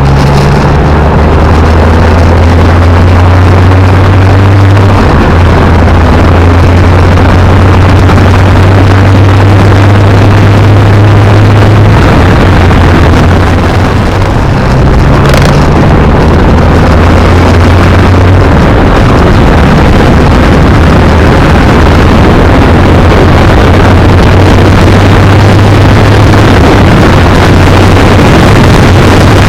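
Kawasaki Z900 motorcycle engine running under way, its low drone stepping in pitch a few times as the speed changes, with loud wind rush over the microphone.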